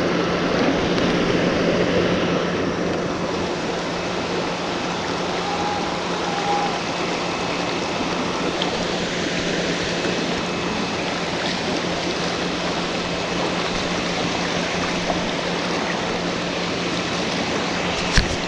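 Steady rushing of flowing creek water, with one short sharp click near the end.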